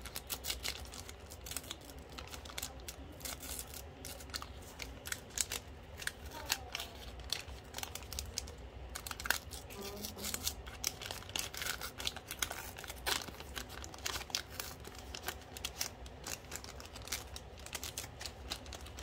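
Panini Marvel Versus trading-card flow-pack wrapper being torn open and crinkled by hand: a dense, irregular run of crackles and sharp clicks.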